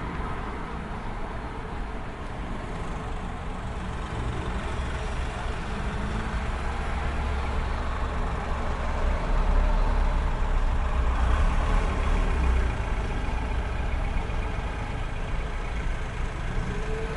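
City street traffic ambience: a steady wash of passing vehicles. A low engine rumble from a heavy vehicle builds through the middle, is loudest about ten seconds in, then eases off.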